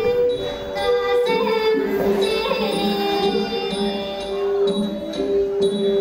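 Thai classical dance music: a high voice holds long sung notes over the melody, with a light percussion stroke about twice a second.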